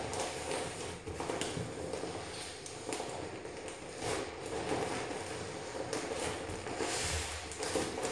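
Vinyl inflatable swim ring, popped and going flat, being squeezed and crumpled in the hands: the plastic rustles and crinkles with irregular small crackles.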